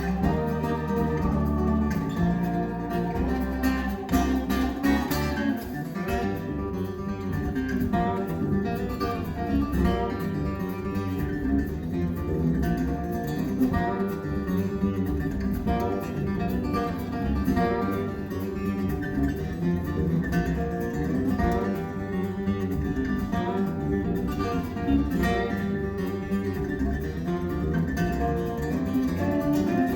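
Acoustic guitar music played back over Magnepan LRS planar-magnetic speakers driven by Emotiva XPA DR1 monoblock amplifiers. The music stops abruptly at the end.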